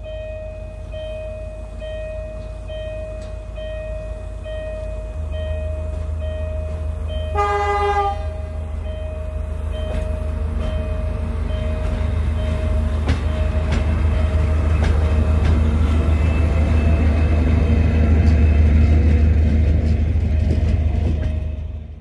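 DB Cargo class 290 diesel-hydraulic shunting locomotive approaching, its engine growing steadily louder as it nears, with one short horn blast about seven seconds in. A repeating ding, about two strokes a second, sounds through the approach.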